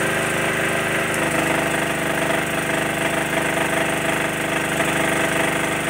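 Honda portable generator's engine running steadily under electrical load. Its note shifts about a second in as more circuits are switched on and the load rises.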